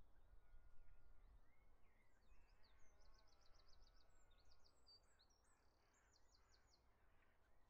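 Near silence: faint background noise with distant bird chirps, including a quick high trill about three seconds in and another near six seconds.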